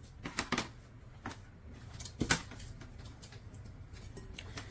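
Scattered light knocks and clicks from handling and opening the electric herb grinder after its run, the loudest about half a second in and just over two seconds in.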